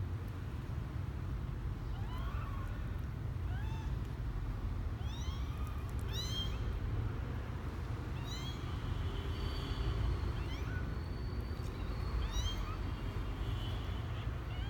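Twelve-day-old kittens mewing: about a dozen short, high-pitched calls that rise and fall, coming every second or so, over a steady low rumble.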